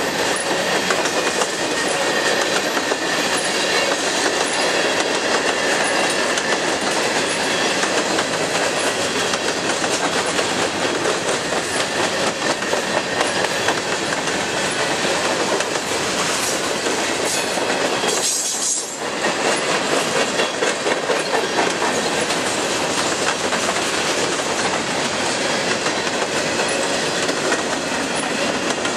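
Freight train of covered hopper cars and tank cars rolling past: steady steel-wheel-on-rail noise, with a short dip in level about two-thirds of the way through.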